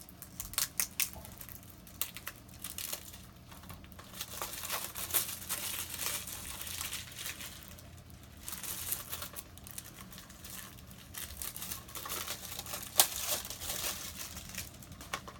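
Thin plastic shrink wrap on a movie disc case crinkling and crackling as it is peeled off and crumpled by hand, with one sharp click late on.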